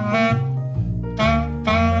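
Jazzy instrumental music: a reed wind instrument plays a melody in short, separate notes over a bass line.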